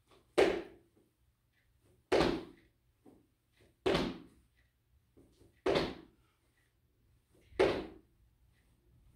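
Feet in sneakers landing squat jumps on a wooden floor: five heavy thuds, evenly spaced, one about every two seconds.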